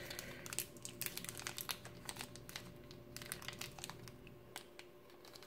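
Small clear plastic bag crinkling faintly as fingers turn and squeeze it: a quick scatter of light crackles that thins out toward the end.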